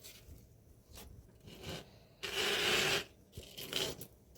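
Rustling and scraping of jewelry and packaging being handled on a tabletop, with one longer rubbing scrape from about halfway through that stops near three quarters of the way.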